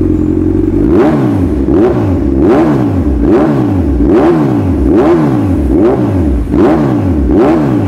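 Kawasaki Z1000 inline-four through an SC Project exhaust, idling for a moment and then blipped on the throttle about nine times in quick succession, the revs rising and falling with each blip.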